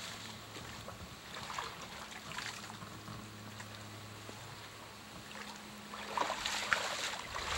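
Muddy creek water splashing and sloshing as a person wades waist-deep and pulls brush out of it, in a few soft bursts and louder near the end. A steady low hum runs underneath.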